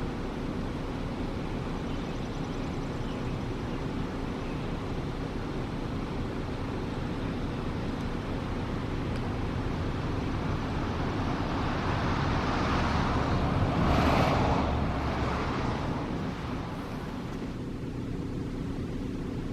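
A car passing by on the road, its tyre and engine noise swelling to a peak about two-thirds of the way through and then fading, over a steady low background rumble.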